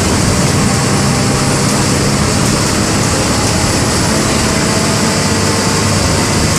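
MWM 6.12 TCE six-cylinder in-line diesel engine (225 hp) of a Volksbus 17-230 EOD bus running steadily under way, its low engine drone mixed with a broad hiss of road and air noise.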